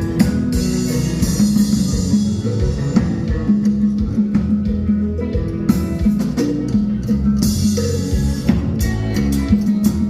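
Music with guitar and drums playing a steady beat.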